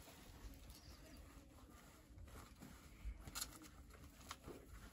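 Near silence, with faint rustling of a printed silk-like fabric being smoothed, folded and picked up by hand, and a few soft taps about three seconds in.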